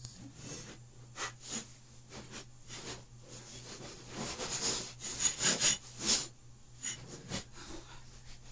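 Scattered kitchen handling noises: light knocks and rustling, then a cluster of sharp clicks and clatters about five to six seconds in, over a steady low hum.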